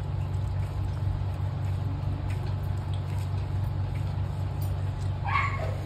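Faint soft squishing and ticking of rice and chicken curry gravy being mixed by hand on a leaf plate, over a steady low hum. A brief vocal sound comes near the end.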